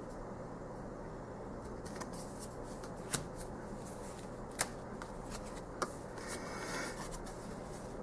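Marchetti Tarot cards being handled on the table: one card is put down and the next drawn from the deck, with three sharp clicks of card edges and a brief sliding rustle near the end.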